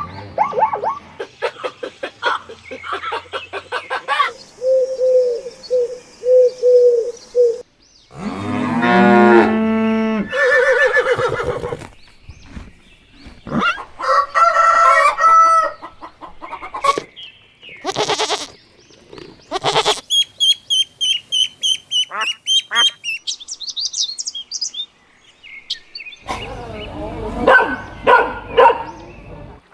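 A rapid run of different farm animal calls, changing every few seconds as clips cut: honking fowl, cattle mooing, and a burst of high, rapid bird chirps about twenty seconds in.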